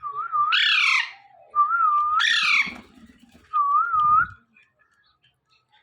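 Alexandrine parrot calling three times: each call begins as a wavering whistle, and the first two break into a loud, harsh squawk that falls in pitch.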